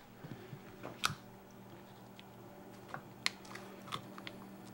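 Locking pliers and steel parts being handled and clamped onto a go-kart's steel-tube front axle: scattered sharp clicks and knocks, the loudest about a second in and just past three seconds, over a faint steady hum.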